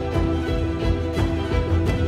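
Background music: a short repeating melody over held notes and a steady beat.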